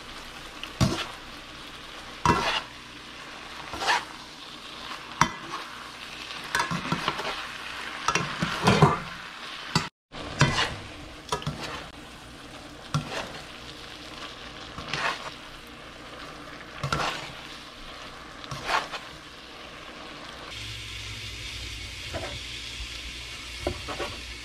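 Pasta frying in a hot skillet with a steady sizzle, as metal tongs toss it and clank against the pan about every one and a half to two seconds. Near the end the sizzle gives way to a quieter steady background with a few light ticks of a knife cutting on a wooden board.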